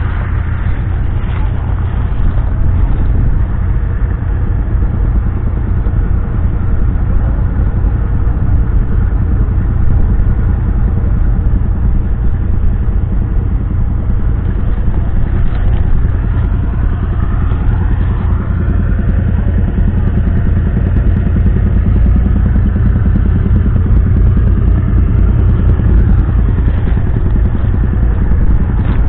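1949 John Deere Model D's 8.2-litre two-cylinder all-fuel engine running steadily, a low, even pulsing beat.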